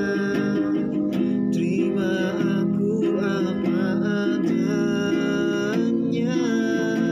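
Nylon-string classical guitar strummed in chords, accompanying a man singing a slow ballad.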